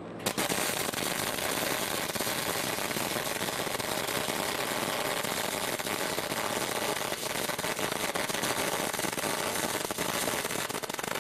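MIG (gas metal arc) welding arc on quarter-inch steel, a steady dense crackle that starts abruptly just after the start and runs on unbroken as a bead is laid along a T-joint.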